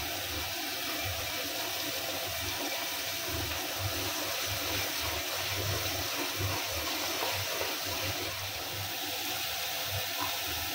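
Onion, chilli and tomato masala paste sizzling steadily in hot oil in a kadai as it is stirred with a wooden spatula, the paste being fried down (kosha) before the oil separates.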